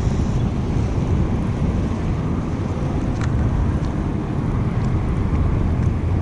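Wind buffeting the camera's microphone: a steady low rumble, with a faint click about three seconds in.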